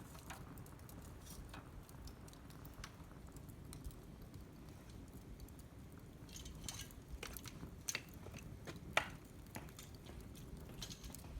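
Wood fire crackling, with irregular sharp pops and snaps over a low, steady rumble of flame; the loudest pop comes about nine seconds in.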